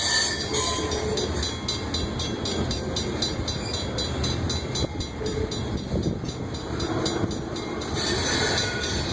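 Loaded grain train's cars rolling past: a steady rumble with a quick, even clicking of wheels over the rail. A brief high squeal comes near the end.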